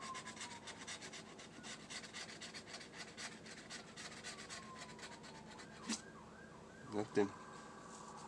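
Scratch-off lottery ticket being scratched, a quick run of short scraping strokes that stops about five and a half seconds in, followed by a knock and two thumps near the end. A faint wailing tone falls in pitch twice underneath, then holds steady.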